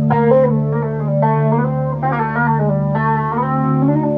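Electric guitar playing a melodic line whose notes slide and bend in pitch, over a steady low drone.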